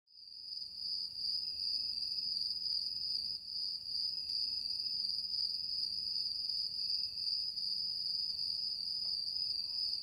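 Crickets trilling: one steady, unbroken high-pitched tone with no pauses.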